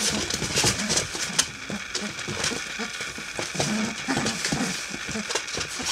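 A litter of 25-day-old English Springer Spaniel puppies scrambling about on a hard wood-effect floor. Their claws make quick, irregular clicks and patter, mixed with brief puppy grunts.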